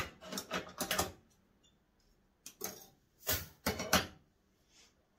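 Short bursts of clicking, rustling and knocking as bonsai wire and tools are handled: a busy cluster over the first second, then three more bursts between about two and a half and four seconds in.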